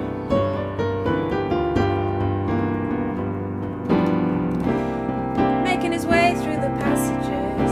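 Digital keyboard played with both hands in its piano voice: an instrumental passage of held bass notes under chords struck in a steady rhythm.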